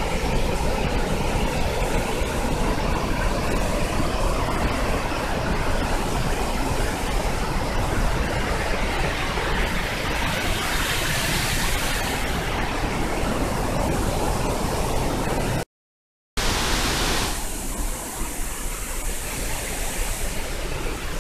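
Large waterfall rushing: a steady, loud wash of falling water. It drops out for under a second about three-quarters of the way through, then comes back thinner.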